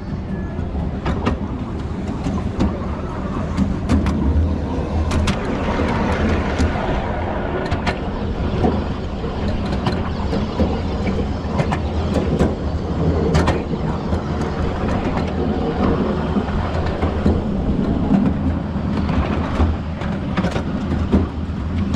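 Miniature railway train running along its track, heard from on board: a steady running noise of wheels on rails, with scattered clicks and knocks.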